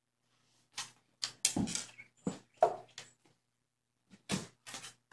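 An irregular run of short knocks and rustling scuffles, a cluster of them in the first few seconds and a few more near the end.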